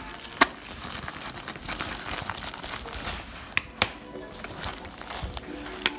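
Plastic packaging bag crinkling as it is handled, with a few sharp clicks and knocks, the loudest about half a second in and two close together near four seconds.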